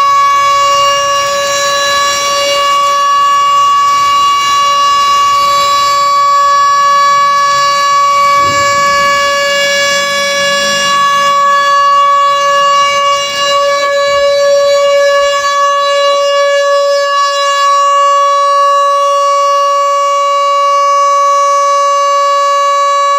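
A siren sounding one long, steady tone at a single unchanging pitch. It is the one-minute commemorative siren sounded in memory of the victims of the 30 September 2009 earthquake.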